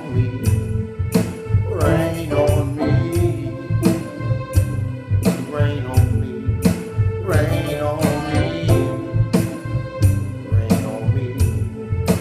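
Music with a steady beat and a man's voice singing over it.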